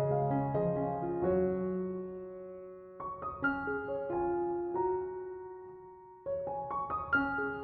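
Slow relaxing piano music: small groups of notes and chords struck a second or two apart, each left to ring and fade away.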